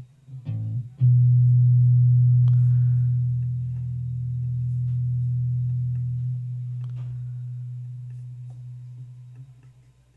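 Bass guitar track playing alone: a couple of short low notes, then one long low note about a second in that rings on and slowly fades away.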